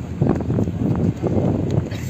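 Wind buffeting the microphone in uneven gusts on a ship's open deck.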